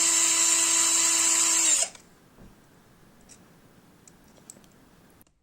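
Ozito power drill running in reverse with a screw-extractor drill bit, boring into a stripped laptop screw: a steady, even whine that cuts off just under two seconds in, followed by a few faint small clicks.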